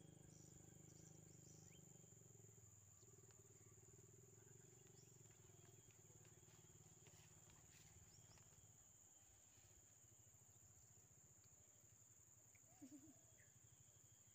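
Near silence: faint outdoor ambience of a steady high-pitched drone and a low hum, with a short double chirp near the end.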